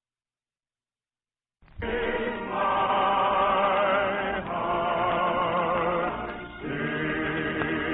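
Choir singing held, wavering notes in a vintage radio recording with a narrow, dull sound. It starts suddenly about a second and a half in, after silence.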